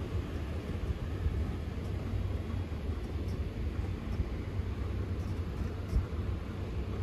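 Electric blower fans of many Halloween inflatables running together, a steady low hum. One short low thump about six seconds in.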